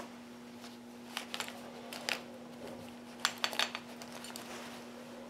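Scissors snipping and being handled while trimming a parachute suspension line: light, sharp clicks in small clusters about one, two and three and a half seconds in, over a faint steady hum.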